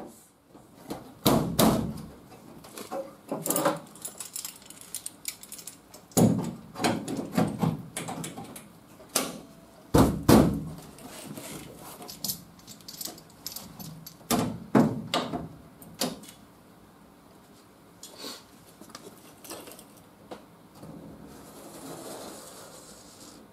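Sheet-metal wheel-arch patch panel being handled and pressed against a pickup's body: irregular thumps, rubs and rattles of metal on metal. A soft scratching sound comes near the end as a marker traces along the panel's edge.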